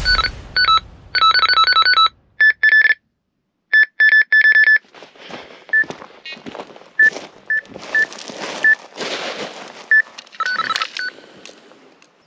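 Electronic carp bite alarm sounding off: rapid runs of beeps, first alternating between two pitches and then on one steady pitch, the sign of a fish taking line. Later come single beeps every half second or so, among rustling and handling noise.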